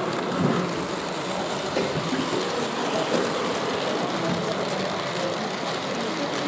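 Model train running along a layout's track, over the steady background noise of a busy exhibition hall.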